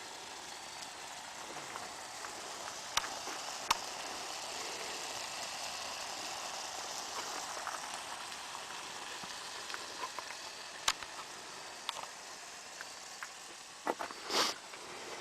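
Food sizzling and frying in a pan, a steady hiss with a few sharp clicks and knocks and a short louder hiss near the end.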